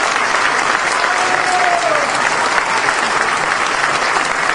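Large audience applauding steadily, a dense even clatter of clapping hands.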